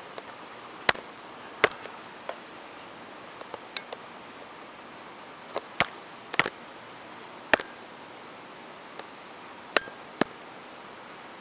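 Sharp, irregular clicks and taps of small plastic vials and caps being handled, about nine in all, over a steady background hiss.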